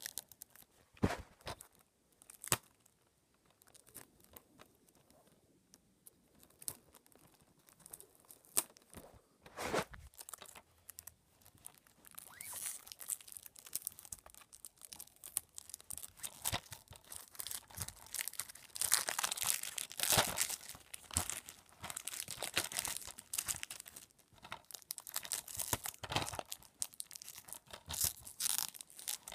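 Packaging being handled, torn open and crinkled by hand. A few sharp knocks come first, then from about twelve seconds in there is a steady crackle of tearing and crinkling in bursts.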